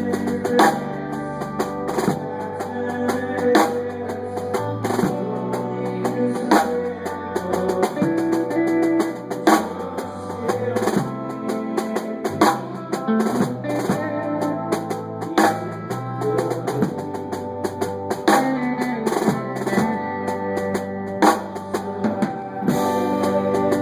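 Music with a steady beat on a drum kit, kick and snare, over a bass line that changes note about every second.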